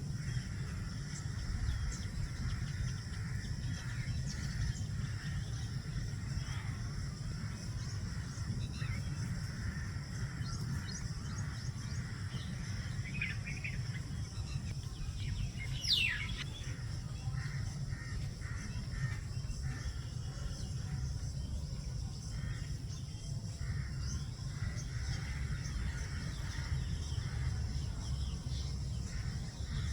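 Outdoor ambience of a steady low rumble with scattered, faint bird chirps and calls; about halfway through, one quick falling whistle-like sweep stands out.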